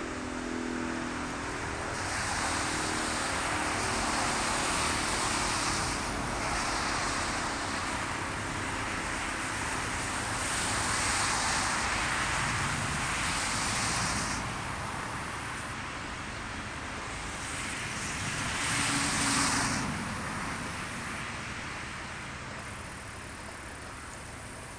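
A two-tone outdoor warning siren, a Sentry 20V2T, fades out as it winds down in the first couple of seconds. After that comes road traffic: passing vehicles, each a rushing noise that swells and fades, three times.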